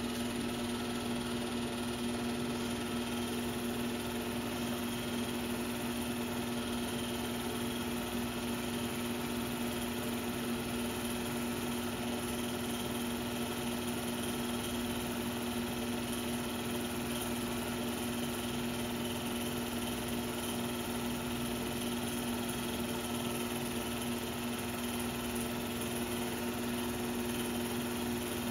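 A 16 mm film projector running: a steady mechanical hum with two fixed tones over a bed of hiss.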